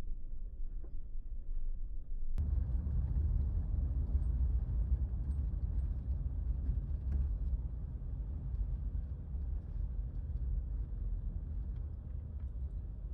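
Steady low rumble of a moving vehicle, the road and engine noise of a van on the drive. It jumps abruptly louder a couple of seconds in, with a click, and then holds steady.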